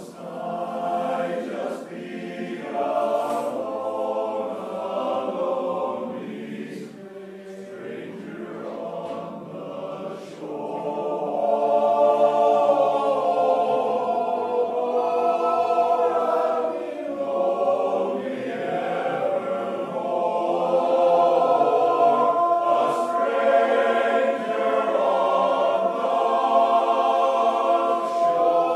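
Men's barbershop chorus singing a cappella in close four-part harmony, growing louder about eleven seconds in.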